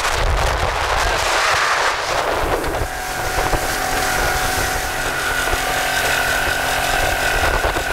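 Motorboat running under way, with water rushing past the hull and wind buffeting the microphone; a steady engine whine sets in about three seconds in.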